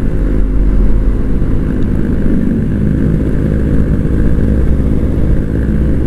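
Kawasaki Ninja RR 150's two-stroke engine running steadily under way through its stock exhaust, a fairly subdued note without the usual crisp two-stroke ring.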